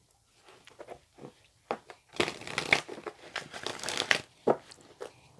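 Crinkling and rustling handling noise with scattered light clicks and taps as a tarot card deck is taken out and handled. The rustling is densest for about two seconds in the middle.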